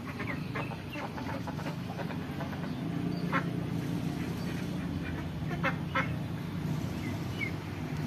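A flock of domestic ducks quacking, with short calls overlapping throughout and a few louder quacks midway and about six seconds in, over a steady low hum.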